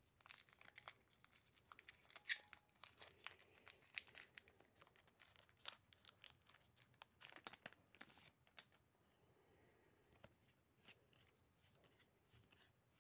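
Foil wrapper of a Pokémon TCG Scarlet & Violet 151 booster pack being torn open, with faint, irregular crinkles and crackles of the wrapper. About two-thirds of the way through it grows quieter, leaving only scattered small clicks as the cards are slid out and handled.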